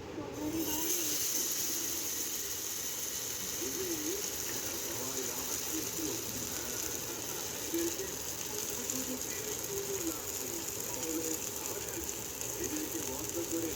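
Fish frying in hot mustard oil in a pan: a sizzling, crackling hiss that starts suddenly about half a second in and keeps going.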